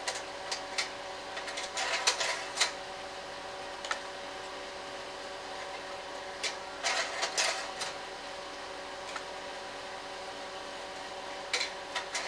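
Slide projector running with a steady mechanical hum, its slide changer clicking and clattering as the slides advance, about two seconds in, again around seven seconds, and near the end.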